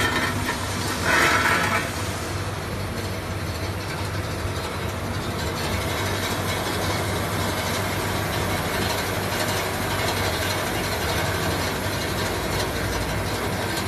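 Softgel washing machine running with a steady mechanical noise and low hum. A brief louder burst about a second in.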